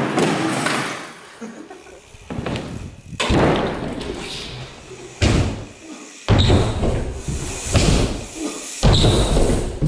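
A BMX bike and rider crashing on plywood ramps: several heavy thuds and bangs as bike and body slam onto the wooden ramps, with tyres rolling and scraping on the plywood in between.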